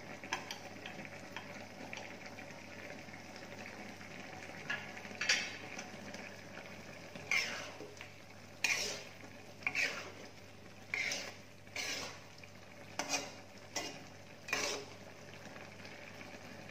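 Spatula stirring a simmering dish in a wok, scraping against the pan about eight times, roughly once a second, starting about five seconds in. Underneath is a steady low sizzle of the simmering food.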